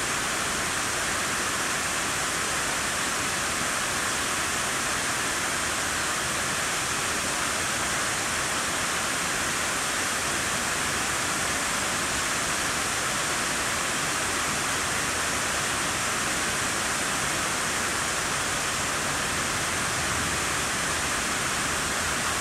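Water falling down the walls of the World Trade Center North Tower reflecting pool into its basin: a steady, even rush of cascading water that never breaks.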